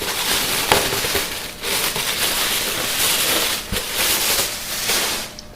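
Plastic bag crinkling and rustling in uneven surges as a welding helmet is pulled out of it, with a few sharp crackles.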